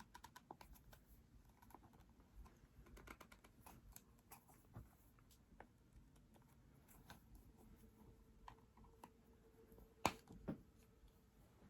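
Faint, scattered clicks and taps of makeup packaging being handled and opened, with a louder pair of clicks about ten seconds in.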